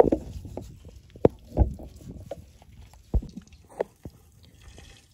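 Scattered knocks and thumps from a knife cutting into a plucked duck carcass and the carcass being handled over a metal pan, the loudest about a second and a half in and again about three seconds in.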